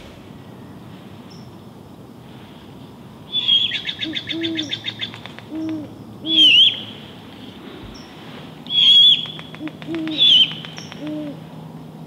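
Great horned owls hooting: about half a dozen short, low hoots in a loose series. Louder, high-pitched calls sound over them, first a rapid stuttering chatter and then several sharp squeals that rise and fall.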